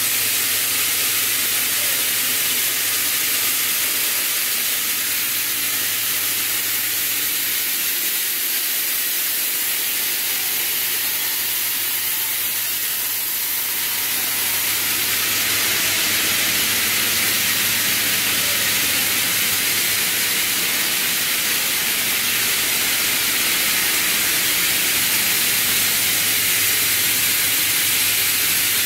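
Running FDY yarn spinning and drawing line: a steady, loud machine hiss with a low hum underneath, getting a little louder about halfway through.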